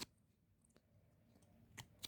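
Near silence, with a single faint short click near the end.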